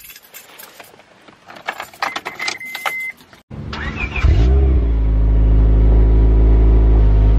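Keys jangling and clicking, with a short electronic tone, then a Honda Prelude SH's H22 four-cylinder engine cranking briefly. It catches about four seconds in and settles into a steady idle.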